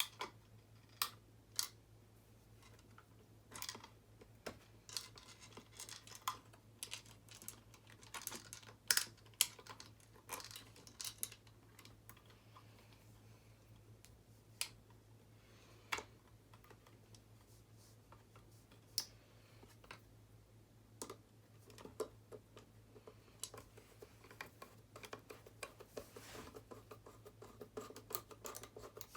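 Irregular clicks, taps and scrapes of hands working wires and small plastic parts while making up electrical connections on a wiring board, with a steady low hum underneath.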